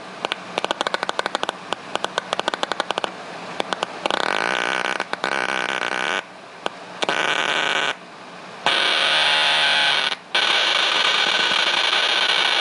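A Casio mini keyboard note crunched up by a circuit-bent filter box whose knobs are being turned. It starts as a rapid stutter of clicks. From about four seconds in it becomes a harsh, buzzing distorted tone that cuts out briefly a few times and grows louder.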